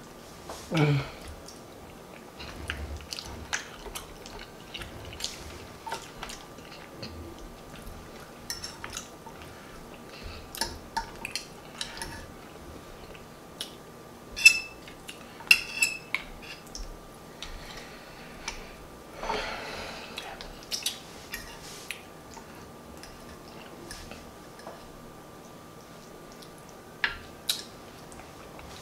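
Close-up eating sounds: wet chewing and mouth smacking on turkey wing meat and mashed potatoes, with scattered light clicks and scrapes of a fork against a plate.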